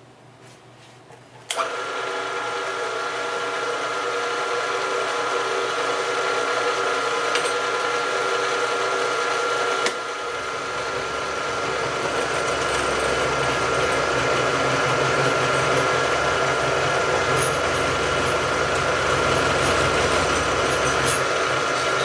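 Electric machine tool switched on about a second and a half in, its motor running with a steady whine. Near the middle a click is followed by a deeper rumble, as if the tool has taken up more load, and the sound cuts off abruptly at the end.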